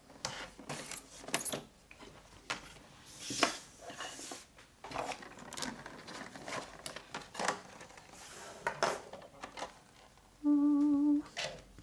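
Toy packaging being handled and opened: scattered crinkles, clicks and rustles, with a denser crinkling hiss about three seconds in. Near the end a short steady tone sounds for under a second.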